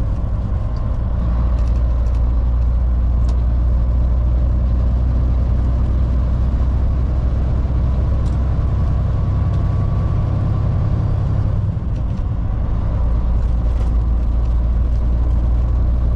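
Volvo VNL780 semi truck's diesel engine running with a steady, deep drone while driving, with a brief dip in level about twelve seconds in.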